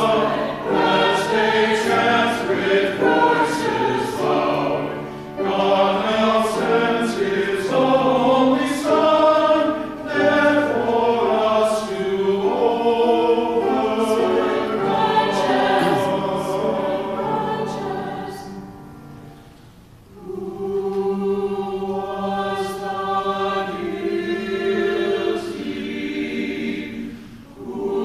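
Mixed church choir singing a choral anthem in parts. About nineteen seconds in, a phrase fades out, then a softer phrase begins.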